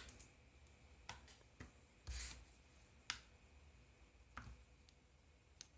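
A handful of faint, scattered clicks and one brief rustle, from a small flashlight being handled in a quiet room.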